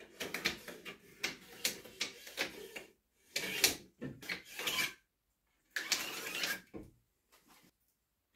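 A spirit level scraping against a log wall and a pencil scratching marks on the wood, in several scratchy bursts a second or two long.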